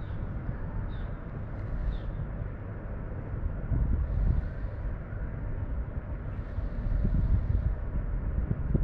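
Wind buffeting the microphone outdoors: a low, uneven rumble that swells and eases in gusts, with a couple of faint short high chirps about one and two seconds in.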